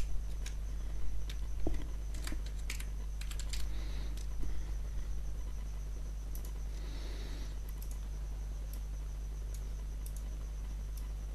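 Computer keyboard keys typed in a few short runs, most in the first half, over a steady low electrical hum.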